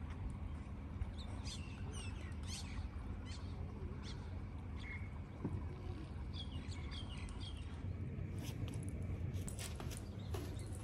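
Small birds chirping in short calls that rise and fall, in two clusters, over a steady low hum. A few sharp clicks come near the end.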